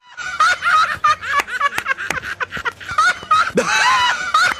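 Men laughing loudly in high-pitched, rapid bursts, with several sharp smacks among the laughs.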